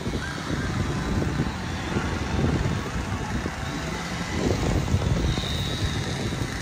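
Steady outdoor background noise with a low rumble and a low engine-like hum that fades in and out.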